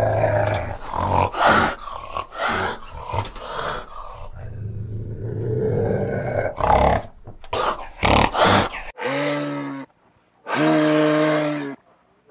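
A fishing cat growling, a rough continuous growl broken by several sharp, noisy outbursts. About nine seconds in this cuts to two long, low, even calls from a moose, each about a second long.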